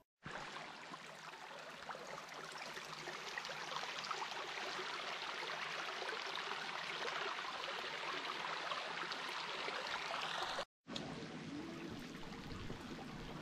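Steady rush of running, splashing water. It cuts out for an instant about eleven seconds in, then goes on.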